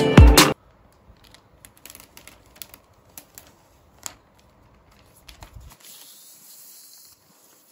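Music cuts off about half a second in; then faint crackles and clicks of clear plastic protective film being handled and peeled off the back of an iPad Air, with a soft hiss at about six seconds.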